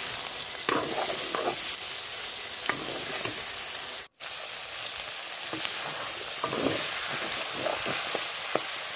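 Chicken pieces frying in hot oil in a kadai, sizzling steadily while a metal spatula stirs and scrapes against the pan. The sound cuts out for an instant about four seconds in.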